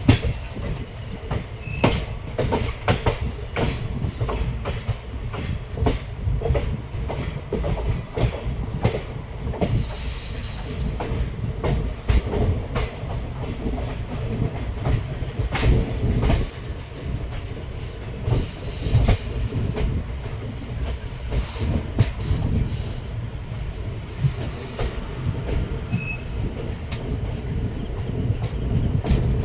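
Indian Railways express train heard from on board as it runs into the station: a steady low rumble of the coaches, with a continual irregular clatter and knocking of wheels over rail joints and points, and a few brief high wheel squeals.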